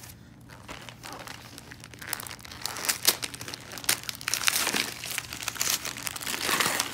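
Gift wrapping paper crinkling and rustling as a present is unwrapped by hand, with sharp crackles, getting louder and busier from about two seconds in.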